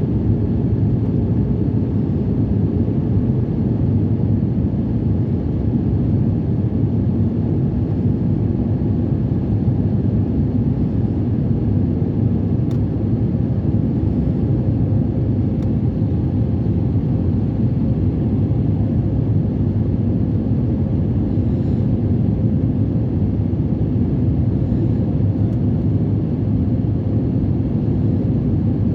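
Airliner cabin noise: a steady low rumble of engines and airflow with a faint steady hum.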